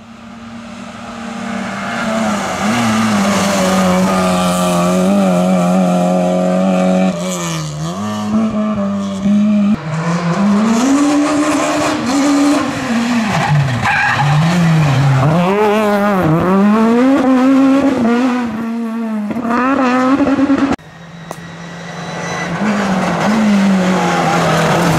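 Rally car engines at full stage pace: a Peugeot 206 rally car comes up and revs up and down repeatedly as it brakes, shifts gear and accelerates out of a hairpin, with some tyre squeal. After an abrupt cut near the end, a second rally car, a Renault 11, is heard approaching, its engine note rising.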